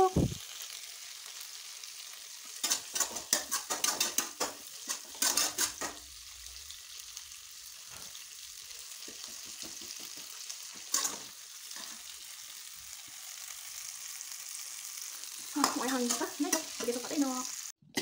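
Capsicum, tomato and onion in a thick sauce sizzling in a frying pan, with a steady hiss. A spatula stirs and scrapes the pan in a quick run of strokes from about three seconds in to six seconds, and once more near the middle.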